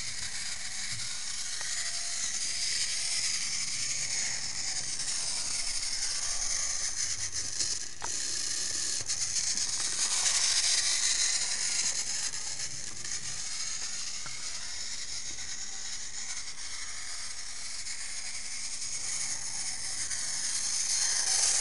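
A TrackMaster Skarloey battery-powered toy engine running on plastic track: a steady whir from its small motor and gears, with fine clicking from the wheels on the track. It gets louder about halfway through as it passes close, and again near the end.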